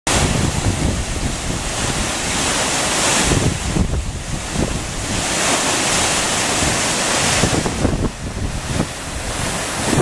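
Waterfall pouring into a plunge pool: a steady rush of white water that dips a little about four and eight seconds in, with wind rumbling on the microphone.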